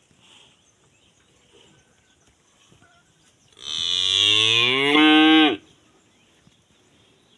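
A cow mooing once: one loud, long moo of about two seconds near the middle, which stops sharply.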